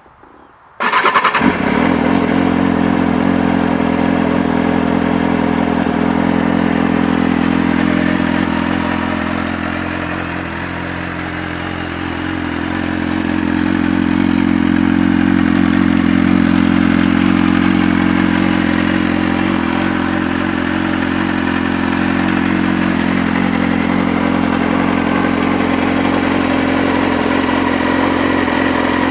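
A 2004 Kawasaki ZX-6RR's inline-four engine, fitted with an Arrow titanium slip-on exhaust, starting about a second in and then idling steadily while still cold.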